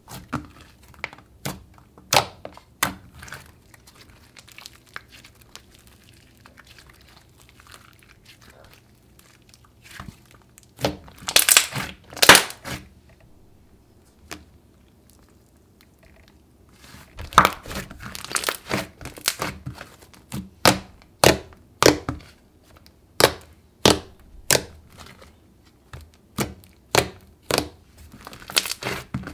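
Thick, glossy slime with foam beads being kneaded and pressed by hand, giving sharp pops and crackles as air pockets squeeze out. A dense cluster of loud pops comes about eleven seconds in, and a steady run of pops from about seventeen seconds on.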